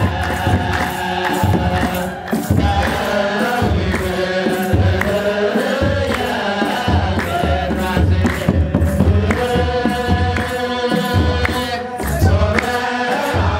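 Ethiopian Orthodox wereb hymn: many voices chanting together in unison over the steady beat of a kebero, the large double-headed church drum, with hand clapping on the beat.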